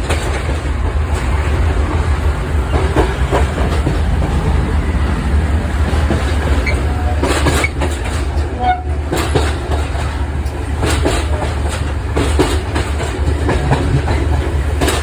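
Express train running on the rails: a steady low rumble with wheels clicking irregularly over rail joints.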